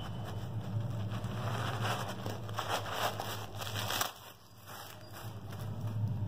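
White packing paper rustling and crinkling as it is pulled out from inside a new running shoe. The rustling stops sharply about four seconds in, over a low steady hum.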